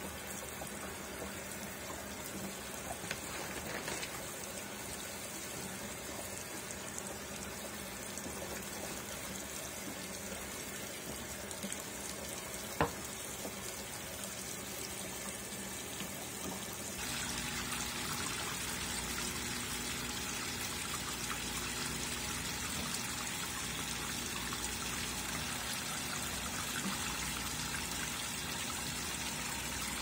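Consul 13 kg Maxi Economia top-load washing machine filling its tub with water over a load of towels: steady running water that grows louder about halfway through. One sharp click partway through.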